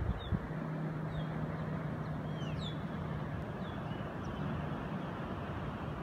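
Steady wind rushing over the microphone on an open clifftop, with a low steady hum underneath and a few short, high bird chirps scattered through.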